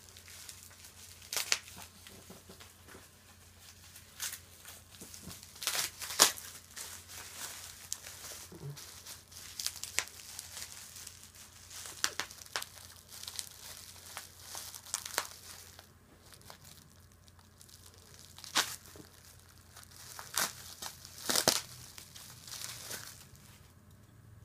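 Packing wrap being pulled off and torn by hand, crinkling and ripping in irregular rustles, the loudest about six seconds in and again near the end.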